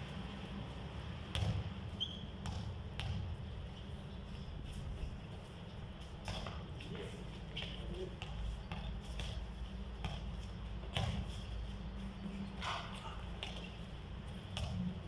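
A basketball bouncing on a concrete court: irregular dribbles and thuds spaced a second or so apart, over a steady low rumble.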